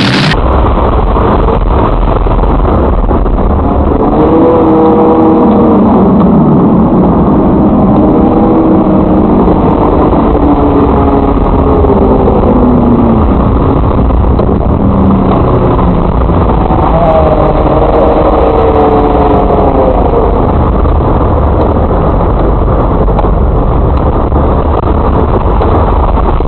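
Demolition derby minivan engines running loud and heavy, revving up and down over a steady low rumble, with rising engine pitch about four seconds in and again around seventeen seconds in.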